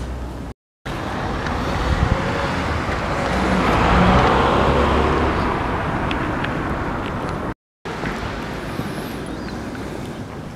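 Road traffic: a car passing, its noise swelling to a peak about four seconds in and then fading. The sound drops out to silence twice, briefly, near the start and near the end.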